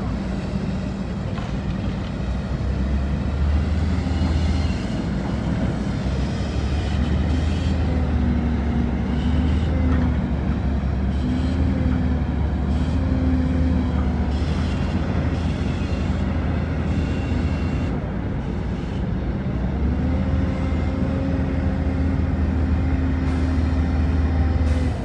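Heavy diesel earthmoving machinery running: a Cat hydraulic excavator and dump trucks working a shale pit, with a deep steady engine drone. Twice the engine note climbs and holds as the excavator works under load.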